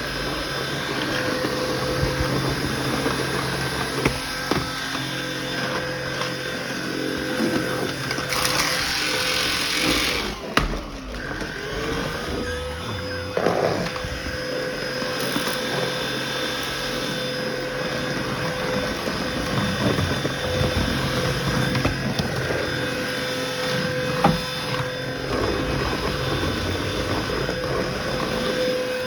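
Cordless stick vacuum running with a steady motor whine as it is pushed over hard floor and rugs. About ten seconds in the sound briefly drops and the whine climbs back up to its steady pitch.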